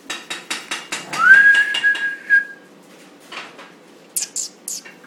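A person whistles one note that slides up and then holds steady for about a second and a half, over a quick run of sharp clicks. Three short, very high squeaks follow near the end.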